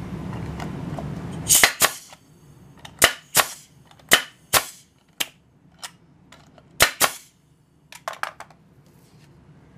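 Arrow PT18G 18-gauge pneumatic brad nailer, fitted with an inline air-tool oiler, firing brads into a strip of wood. There are about six sharp shots roughly a second apart, most of them a quick double crack, with a small cluster of lighter clicks near the end.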